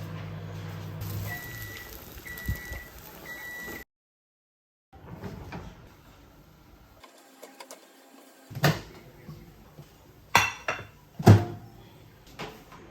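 A household appliance hums steadily, stops about a second in, then gives three short high beeps about a second apart, the pattern of a microwave finishing. After a cut, a few sharp knocks and clatters come near the end.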